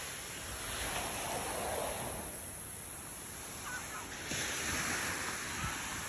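Ocean surf breaking and washing on a beach: a steady rush of waves that swells and eases slowly.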